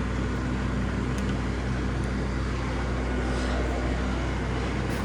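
A small engine running steadily, a constant low hum with no change in speed.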